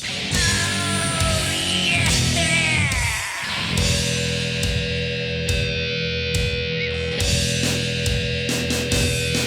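Rock music with electric guitar and drums, a heavy, distorted sound.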